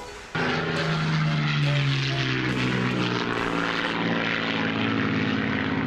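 Propeller airplane flying past, a travel sound effect that starts suddenly about a third of a second in and then drones steadily, its engine note sinking slightly.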